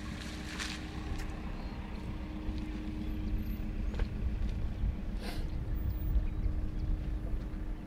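Steady low rumble with a faint steady hum, and two brief faint sounds, one early and one about five seconds in.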